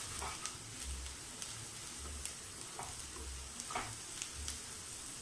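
Wooden spatula stirring onions and curry leaves frying in a nonstick pan: a faint sizzle with light scraping clicks every half second or so and soft low bumps of the pan.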